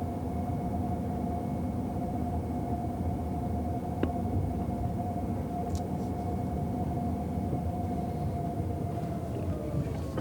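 Toyota RAV4 hybrid heard from inside the cabin while driving at an even pace: a steady road and tyre rumble under a constant hum, with a single click about four seconds in and a small knock near the end.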